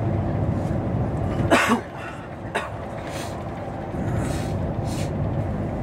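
Inside a moving MAN shuttle bus: steady engine and road rumble. About a second and a half in, a short loud sound falls steeply in pitch, and after it the rumble drops and stays quieter for a couple of seconds before it rises again.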